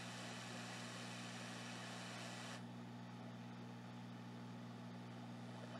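Hot air rework station blowing on the board as a faint steady hiss over a low electrical hum. The upper part of the hiss cuts off suddenly about two and a half seconds in, leaving a duller hiss and the hum.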